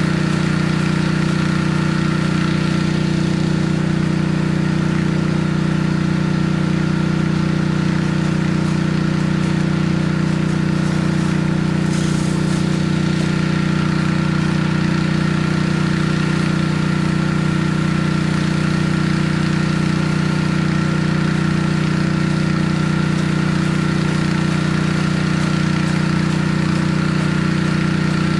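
Pressure washer's gas engine running steadily at an even speed.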